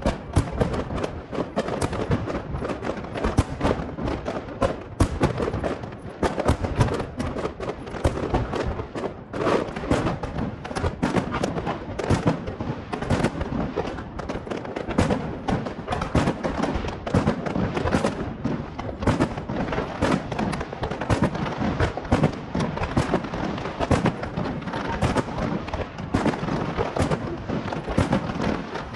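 Fireworks display going off continuously: a dense, irregular run of bangs and crackling bursts, many overlapping, with a few louder booms standing out.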